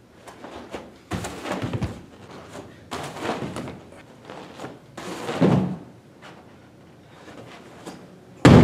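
Thumps and scuffs of a person moving and landing on gym mats in several short bursts, then near the end a loud single thud of a backflip landing on the mat, a landing a little bit heavy.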